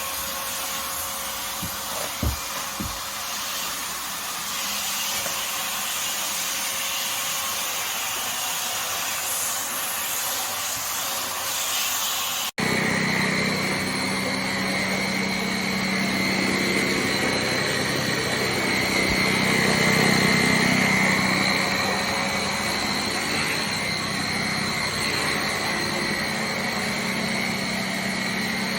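Vax Air Lift 2 Pet upright vacuum cleaner running with a steady rushing noise, with a couple of soft knocks about two seconds in. About halfway through there is an abrupt cut to a steady motor whine over a low hum.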